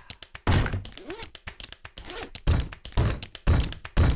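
Deep, heavy thuds from an edited intro soundtrack: one about half a second in, then four more half a second apart in the second half, with hiss between them.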